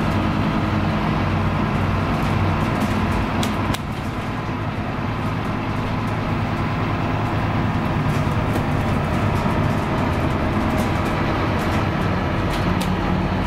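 Cabin sound of a Scania K310UB low-floor bus on the move: its five-cylinder diesel engine drones steadily, with road noise and light clicks and rattles from the interior fittings. The engine sound drops back briefly about four seconds in, then builds again.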